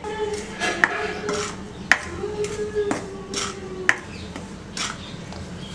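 Metal spoon stirring and scraping dry rice flour around a metal kadai as it roasts, clinking sharply against the pan about once a second.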